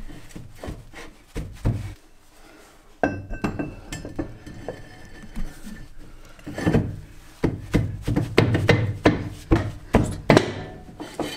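VW Beetle rear brake drum being handled and fitted by hand over new brake shoes: irregular metal clunks, clinks and scraping, busiest and loudest in the last few seconds.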